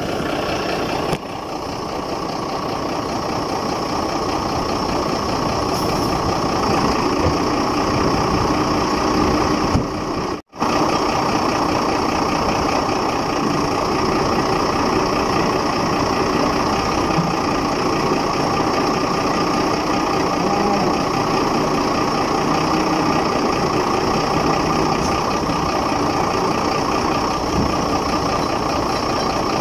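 Engine of a truck-mounted crane (boom truck) running steadily, with a brief break about ten seconds in.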